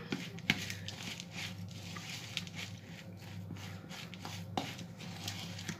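Oat and mashed banana dough being stirred in a plastic bowl: faint scraping and a few light taps, over a steady low hum.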